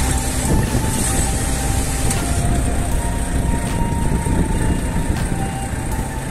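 A heavy diesel truck engine idling, a steady low rumble under a constant hiss.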